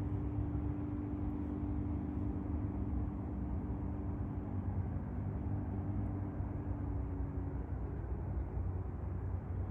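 Light single-engine propeller plane's engine running steadily in flight: a low, even hum with a higher steady tone that fades out about eight seconds in.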